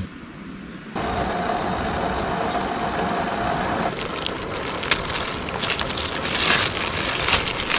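A portable gas stove burner hissing steadily under a steaming pot. From about four seconds in, a plastic bag of mandarin oranges crinkles and rustles as fruit is pulled out of it, louder near the end.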